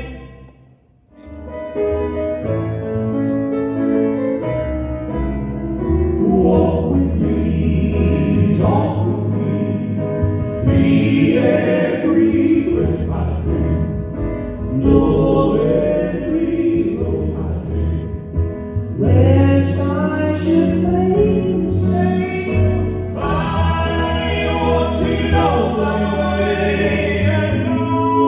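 Gospel music with several voices singing in harmony over instrumental backing. The music drops out briefly about a second in, then starts again and runs on.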